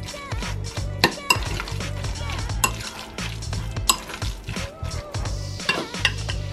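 Metal fork stirring a thick mayonnaise and grated-vegetable mixture in a glass bowl. It scrapes through the mix and clinks sharply against the glass several times. Background music plays underneath.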